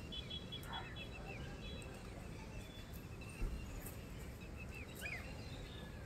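Small birds chirping and twittering in short repeated calls over a steady low outdoor rumble, with one brief low thump a little past halfway.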